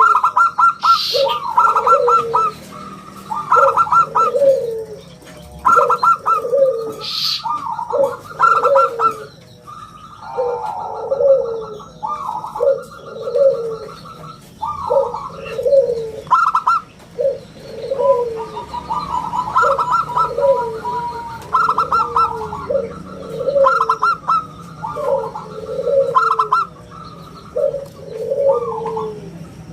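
Zebra dove (perkutut) singing its song over and over, a rapid trilled run of notes ending in rounded coos, repeated about every one to two seconds. Two brief high sounds come in about a second in and near seven seconds.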